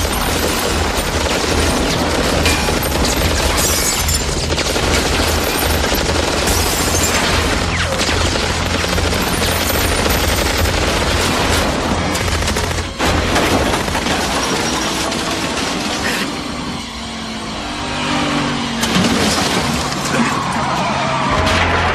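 Action-film sound mix: sustained rapid automatic gunfire with glass shattering over a car engine and a music score; the gunfire thins out after about sixteen seconds.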